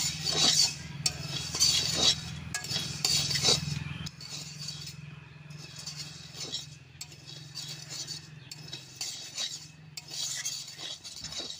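Spatula (khunti) stirring and scraping flattened rice (chira) round a metal kadai as it roasts: repeated uneven sweeps of rustling flakes and metal scraping on the pan.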